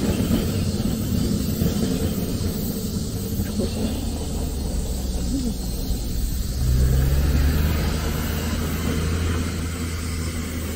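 Rickshaw wheels rolling over pavement, a steady low rumble. A low steady hum joins about six and a half seconds in.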